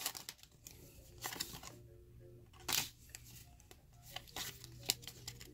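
Pokémon trading cards being pulled from a foil booster pack and fanned in the hands: faint, scattered flicks and clicks of card stock at irregular moments, over a low steady hum.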